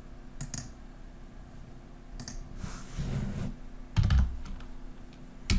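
Computer keyboard keys being struck: a handful of separate keystrokes, likely the Enter key bringing up fresh router prompts, with the heaviest presses about four seconds in and near the end.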